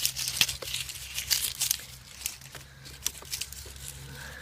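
Irregular rustling, crinkling and snapping of plants handled and pulled by hand while harvesting onions. The crackling is densest in the first two seconds and thins out after, over a steady low hum.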